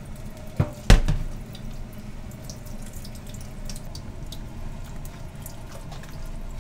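Two sharp knocks about a second in, the second the louder: a plastic bowl set down in a stainless-steel sink. Then water dripping and draining from maesaengi seaweed pressed in a wire-mesh strainer over the sink.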